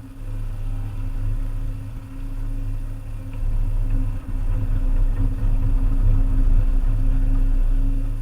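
Volvo EC300E excavator's diesel engine running steadily, growing louder about three and a half seconds in.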